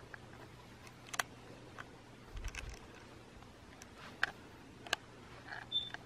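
Quiet room tone with a faint steady hum and scattered soft clicks and ticks from a handheld camera being moved about. There is a soft low thud about two and a half seconds in and a brief faint squeak near the end.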